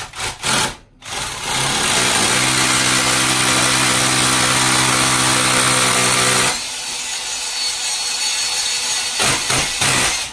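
Cordless hammer drill boring into a brick wall. It gives two short bursts, then runs steadily and loudly for about five seconds. About six seconds in it drops to a quieter, rougher run, and it ends in a few short bursts.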